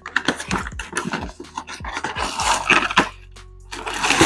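Cardboard retail box being opened and its packaging handled: a run of taps and clicks, with denser rustling of packaging about two to three seconds in.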